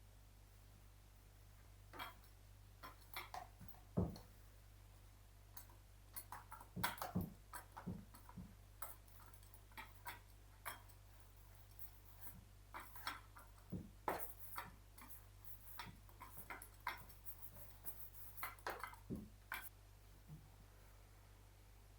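Scattered soft clicks and knocks of small objects being handled, irregular and spread throughout, over a faint steady low hum.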